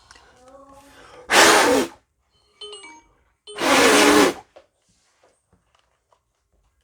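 Two short hissing bursts of electronic contact-cleaner spray from an aerosol can, about a second and a half in and again near the middle, aimed at the 3DS game card reader to clean it. Faint beeps and small clicks come between and after the bursts.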